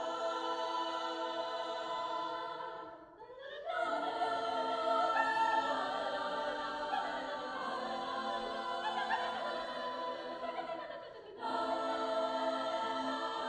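A cappella choir of young voices singing sustained chords in harmony, with two brief breaks between phrases, about three seconds in and about eleven seconds in.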